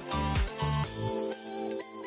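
Music: held notes over a low pulsing beat, which drops out about a second in, leaving only the sustained notes.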